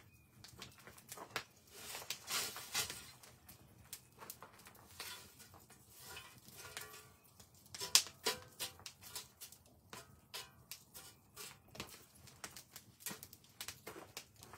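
Open wood fire crackling while a long iron poker shifts and stirs the burning logs, giving irregular sharp clicks and knocks. There is a short rush of noise about two seconds in and a sharp knock about eight seconds in.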